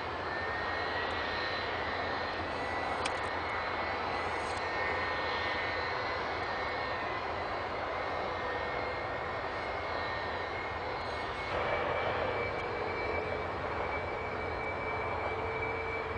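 Jet airliner engine running steadily: a continuous rushing noise with a thin whine over it, growing slightly louder about eleven seconds in.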